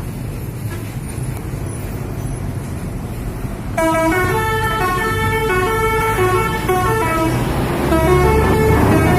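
Traffic rumble, then about four seconds in a bus's telolet horn, a set of musical air horns, starts playing a tune of stepping notes. A heavier engine rumble swells near the end as the bus passes.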